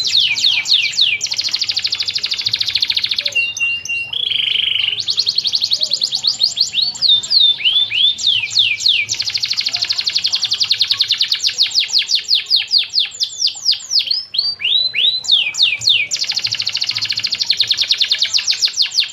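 Domestic canary singing a long, unbroken song of rapid trills and quick downward-sweeping notes, with a brief held whistle around four seconds in.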